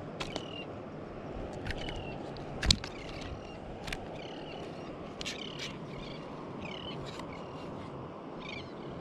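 Birds calling with many short chirps and clicks over a steady outdoor hiss. A sharp click a little under three seconds in is the loudest sound.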